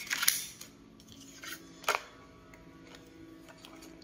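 Scissors snipping through thin craft paper in a few short, crisp cuts, the loudest in the first half second and another about two seconds in, over faint background music.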